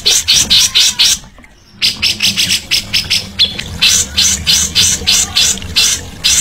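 Songbird calling in a rapid string of harsh, rasping notes, about five a second, with a short break about a second in.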